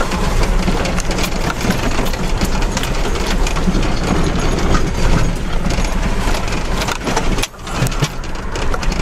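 Jeep engine running under load as the vehicle crawls over a rough, sandy and rocky dirt track, the body and fittings knocking and rattling over the bumps, heard from inside the cab. The level dips briefly near the end.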